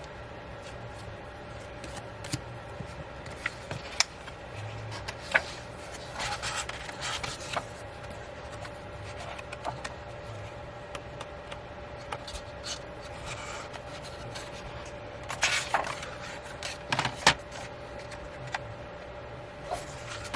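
Paper and card being handled: album booklet pages turned and rubbed, with scattered light taps and two short spells of rustling, about six seconds in and again around sixteen seconds in.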